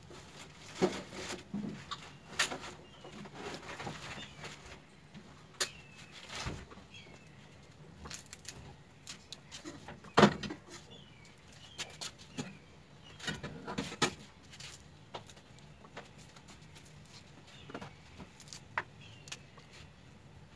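Hands prying pomegranate seeds from the peel, with irregular soft clicks, crackles and small knocks as seeds and bits of peel are worked loose and drop into a plastic colander. The loudest knock comes about ten seconds in. Birds chirp faintly in the background.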